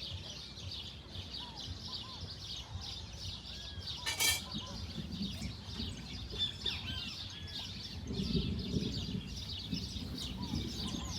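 A chorus of many small birds chirping and twittering, with quick short calls overlapping throughout. A single sharp knock comes about four seconds in, and a low rumble rises near the end.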